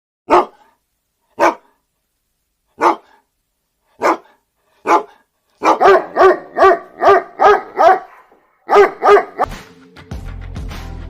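Dog barking: five single barks spaced about a second apart, then a quick run of about eight barks and two more. Music comes in near the end.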